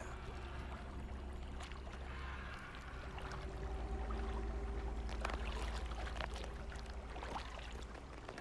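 Water sloshing and lapping against rocks as a swimming green iguana reaches a rocky shore, with scattered small splashes over a low steady rumble.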